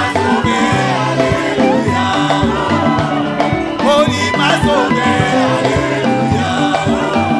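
Church congregation and a lead singer on a microphone singing an upbeat French-language worship song, with instrumental backing and a steady beat.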